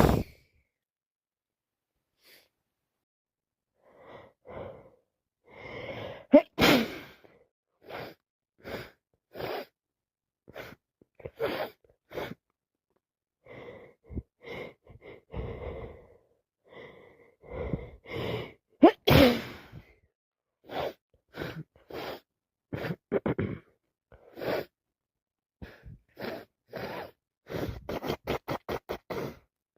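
A person with a head cold sneezing wet sneezes, the two loudest about six seconds in and again about nineteen seconds in, with gasping breaths between. Near the end comes a quick run of short breaths.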